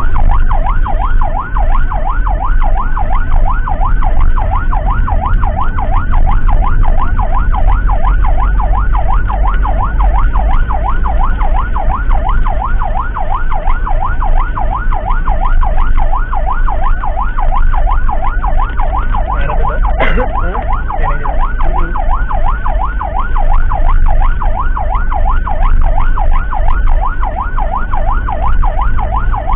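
Emergency vehicle siren on a fast yelp, its tone sweeping up and down several times a second without a break, over a steady low engine and road rumble. About twenty seconds in, a brief sharp sound with a falling tone cuts across it.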